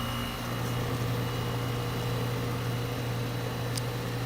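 Goodman central air conditioner's outdoor condensing unit running, its compressor and condenser fan giving a steady hum. A single light click near the end.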